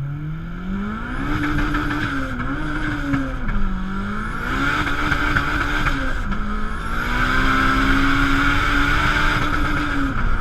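Honda Civic VTEC four-cylinder engine revving hard. It climbs in pitch in the first second and is held high, sags about three and a half seconds in, climbs again, dips briefly about six seconds in, then is held high for about three seconds before dropping off near the end.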